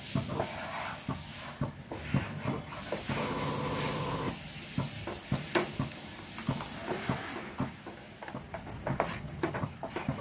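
Wooden spatula scraping and knocking against a nonstick pan while stirring khoa being roasted in ghee: an irregular run of clicks and scrapes. A steady high whine sounds in the background for about a second, a little past three seconds in.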